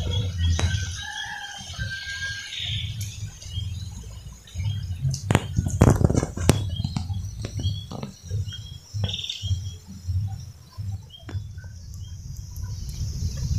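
Chickens clucking and calling, with a few sharp slaps and splashes about five to six seconds in as hands grope through shallow muddy pond water.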